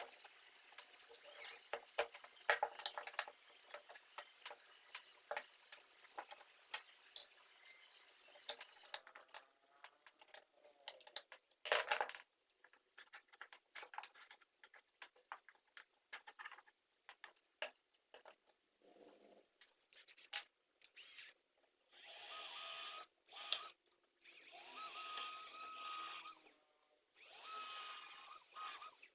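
Workshop handling noises, scattered clicks and knocks, followed near the end by a small power tool running in four short bursts.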